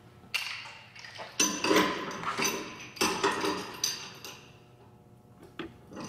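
Pipe wrench and metal pipe clanking and scraping as a 1/2-inch threaded supply pipe is tightened into its fitting: about four sharp metallic knocks with a short ring, and rattling between them.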